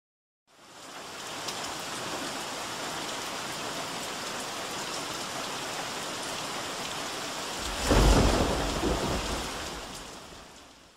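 Steady heavy rain that fades in, with one loud thunderclap about eight seconds in that dies away over a couple of seconds as the rain fades out.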